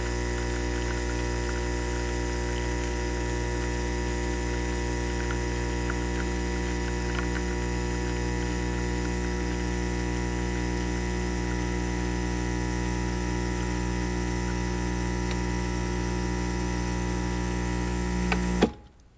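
Mr. Coffee One-Touch CoffeeHouse espresso machine's pump running with a steady, even hum and a few faint ticks, then stopping abruptly with a sharp click about a second before the end.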